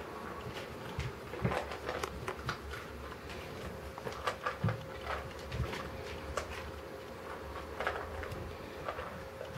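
Irregular light knocks, taps and rattles from pets playing with a toy hanging from a door: the toy knocking against the door, with paws and claws on the floor.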